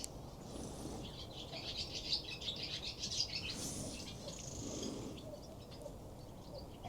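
Birds chirping faintly: a quick run of short, high calls over the first few seconds, then a few scattered ones.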